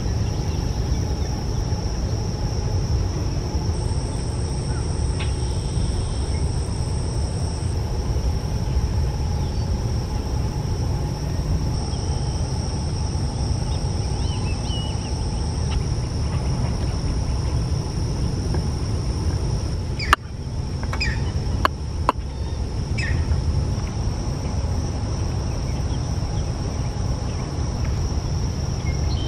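Steady insect chirring in one high, even tone over a constant low rumble, with a few sharp clicks about two-thirds through.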